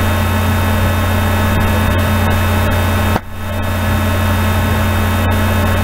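A steady low droning hum with a hiss over it; it cuts out sharply about three seconds in and fades back up.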